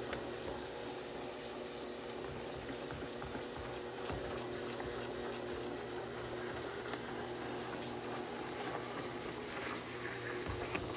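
BISSELL Spinwave powered spin mop running, its motor humming steadily while its two spinning pads scrub soapy water on a deck, a wet swishing under the hum.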